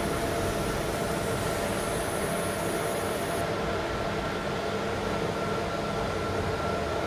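Laser marking machine engraving a stainless steel plate: a steady machine hum with fan noise and a few steady tones. A faint high whine stops about three and a half seconds in, as the marking finishes.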